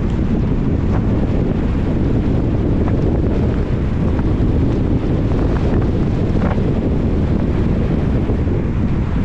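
A car driving on a wet road in rain: a steady low rumble of tyres and wind noise, with a few faint ticks.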